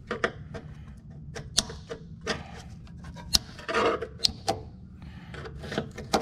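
Flat-tip screwdriver prying and scraping around the silicone-sealed mount of a through-transom live well pump: irregular sharp clicks and short scrapes as the seal is broken to free the old pump.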